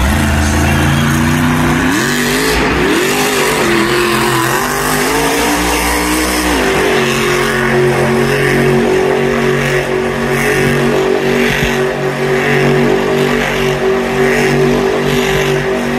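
Earth Shaker monster truck's supercharged V8 engine at high revs while the truck balances on two wheels. The revs climb about two seconds in, rise and fall for several seconds, then hold steady.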